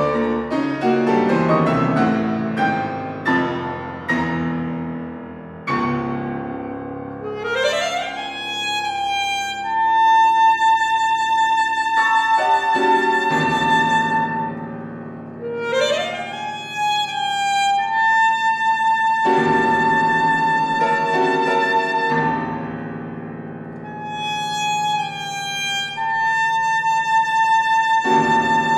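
Alto saxophone and grand piano playing classical music. The piano opens with fast, dense chords, then the saxophone twice sweeps upward into long high held notes with vibrato over piano chords, and holds another high note near the end.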